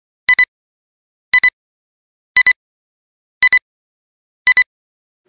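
Film-leader countdown sound effect: a short, high double beep once a second, five times, with silence between.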